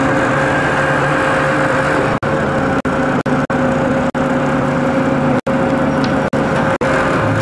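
Boat engine running steadily at an even speed, with the sound cutting out for an instant several times.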